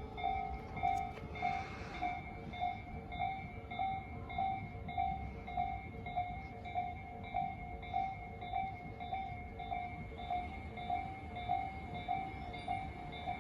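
Japanese railway level-crossing warning bell ringing in a steady electronic ding-ding, about two strikes a second, while the crossing is closed for an approaching train.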